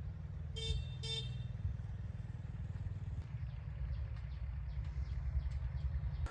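A vehicle engine runs with a low, fast-pulsing rumble. A horn gives two short beeps about half a second apart, near the start.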